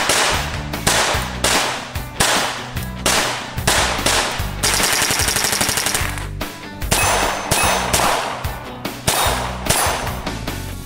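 Gunshots from .22 LR rimfire pistols and rifle, fired in steady strings about two a second, with a faster burst of rapid shots around the middle. Rock music with guitar plays underneath.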